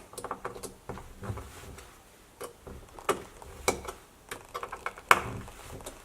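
A metal credit-card multitool clicking and scraping against a screw as its edges are used to turn it. There are a few light ticks and knocks, with a sharper click about five seconds in.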